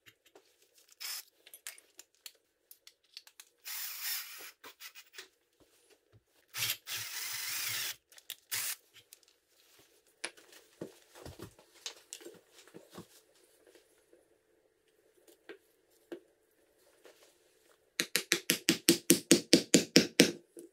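Scattered workshop handling knocks and brief scraping noises, then, near the end, a quick run of about a dozen sharp hammer taps driving a wooden handle onto a drawknife's tang.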